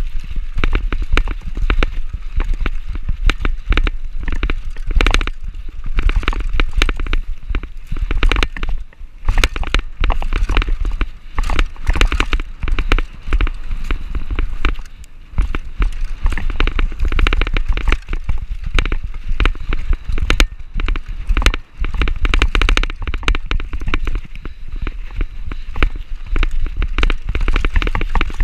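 Mountain bike riding fast down a dry dirt trail: a constant rapid clatter and rattle of the bike over rough ground, with tyres crunching on dirt over a steady low rumble.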